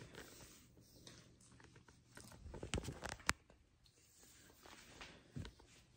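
Faint rustling and light clicks of a person moving about in clothing. The clicks cluster just past the middle and end in one sharper click, and a soft thump comes near the end.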